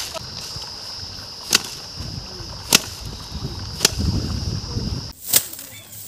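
Rice stalks being cut by hand with a sickle: crisp swishing cuts about once a second, over a steady high-pitched drone that stops abruptly about five seconds in.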